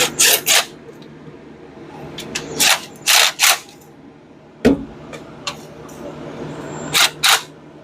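Hand-tool work on a car engine: short scraping, clicking bursts in quick twos and threes, like strokes of a wrench or ratchet on the valve-cover bolts, with one sharp metal knock about halfway through. A steady low hum runs underneath.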